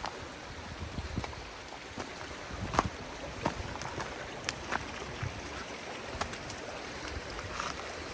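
A babbling brook running steadily, with scattered footsteps on icy ground.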